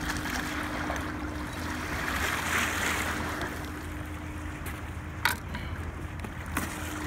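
Waves washing over a rocky, shell-covered shore, swelling about two to three seconds in, over a faint steady low hum. A sharp knock about five seconds in, with a lighter one near the end.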